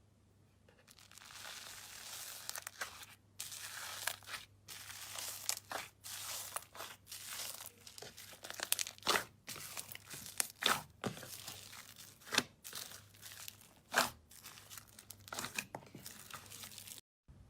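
Slime being squeezed and stretched by hand close to the microphone, crackling and popping irregularly, with louder pops now and then.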